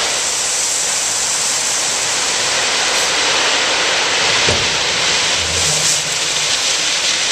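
Number 8 gravel pouring out of a raised dump truck bed onto a pile: a steady rushing hiss.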